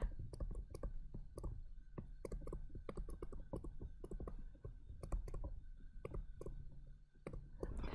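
Faint, irregular clicks and taps of a stylus tip on a writing surface as words are handwritten in digital ink.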